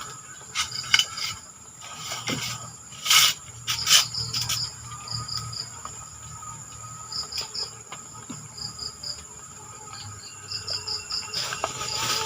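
Insects chirping and buzzing in the swamp: a steady high whine with short high chirps repeating in little groups. A few sharp loud knocks or rustles stand out, about one, three and four seconds in.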